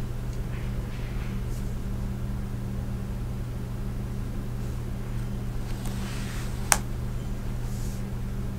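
Steady low room hum with a few faint rustles, and a single light click about two-thirds of the way through.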